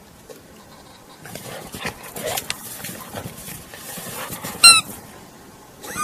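Dog pushing through deep snow, crunching in short irregular strokes, with one short, loud, high squeak about three-quarters of the way through.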